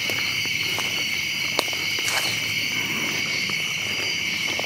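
A steady chorus of crickets and other night insects, a continuous high drone, with a few faint clicks and one sharper tick about a second and a half in.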